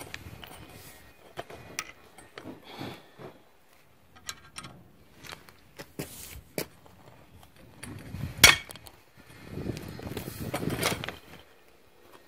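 Bolt cutters cutting through a small steel screw: light metallic clicks of the jaws and pieces, then one sharp snap as the screw shears about eight and a half seconds in. A rustling scrape of handling follows.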